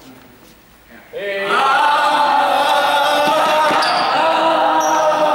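Several voices holding a long, loud vocal note together, setting in suddenly about a second in and sustained without a break. A few footfalls on the hard sports-hall floor sound under it.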